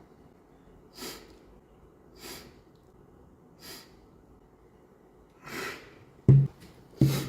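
A young man sniffling three short times, then a long breath in and a sudden loud sneeze about six seconds in, with another loud burst just before the end.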